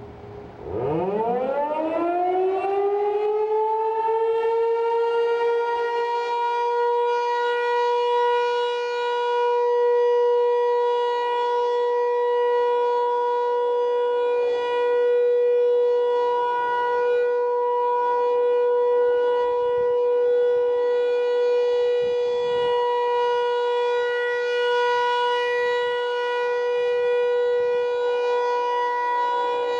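American Signal T-128 outdoor warning siren winding up: about a second in its pitch climbs quickly and levels off within a few seconds into a loud, steady tone that holds on, sounding in an activation test.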